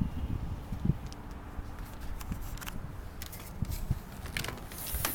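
Footsteps and handheld-camera handling noise: a few soft thumps and clicks over a low rumble.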